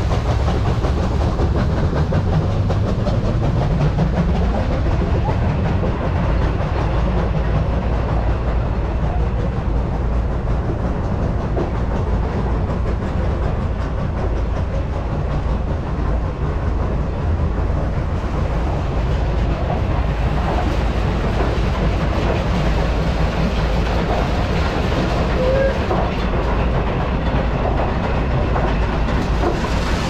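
Water-wheel-driven grain mill running, with a steady rumble and clatter from its belts, pulleys and line shafts and water falling off the wheel.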